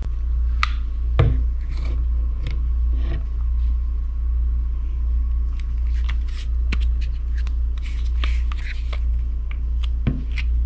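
A steady low hum, with scattered light clicks and scrapes of a pistol fitted with red dot sights being handled.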